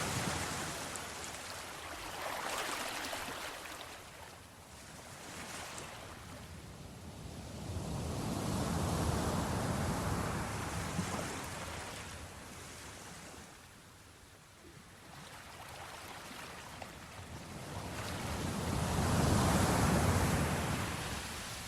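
Sea surf washing onto the shore in slow surges, each wave swelling and then ebbing away. The waves peak about nine seconds in and again near the end.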